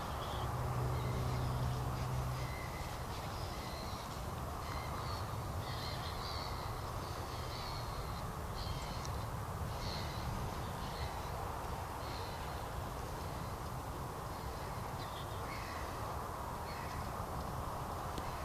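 Scattered short, high animal calls over a steady outdoor hiss, with a low hum in the first couple of seconds.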